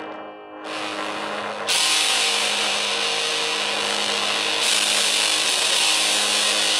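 Loud hiss from a Boss BD-2 Blues Driver overdrive pedal playing through a Daiso USB mini speaker rewired as a guitar amp, with a steady hum under it. The hiss gets louder in two steps in the first two seconds and brightens again midway, as the pedal's knobs are turned up.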